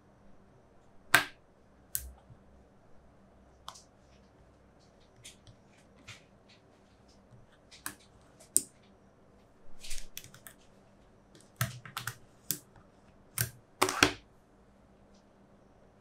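Small magnetic balls clicking as they snap together and are set in place by hand: irregular sharp clicks, with a quick run of clicks about ten seconds in and the loudest snaps just after the start and about fourteen seconds in.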